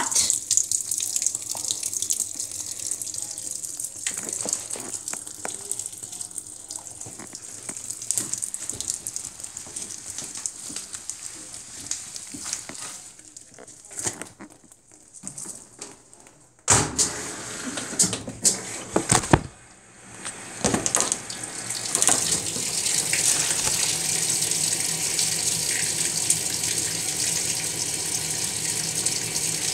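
Water pouring from the rim of a Maytag MVWX655DW1 top-load washer into the drum and onto wet dish towels as the machine fills for a deep water wash, a steady splashing hiss. Just past the middle it dips and a few knocks and splashes come as a hand moves the load, then the fill runs on louder.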